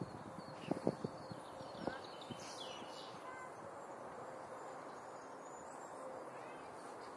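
A few soft thumps in the first two seconds, then birds chirping in the background, with a couple of quick descending chirps about two to three seconds in, over a faint steady outdoor hiss.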